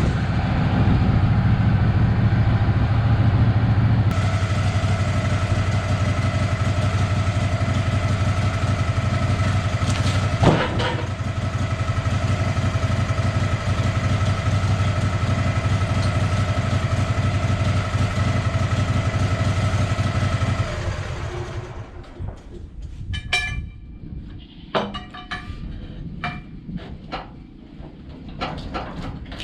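Engine running steadily, with one sharp bang about ten seconds in. The engine cuts off about 21 seconds in, followed by scattered knocks and clatters.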